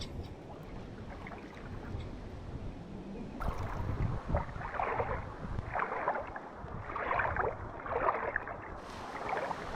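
Footsteps wading through shallow saltwater flats, a splashing swish with each stride about once a second, starting a few seconds in. Low wind rumble on the microphone underneath.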